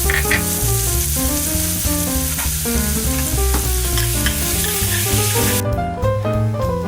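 Food sizzling as it fries in a pan, over background music. The sizzle cuts off abruptly about five and a half seconds in, leaving only the music.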